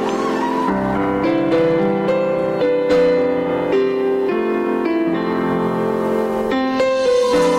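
Instrumental intro of a backing track, led by piano playing a slow melody of held notes. No singing comes in yet.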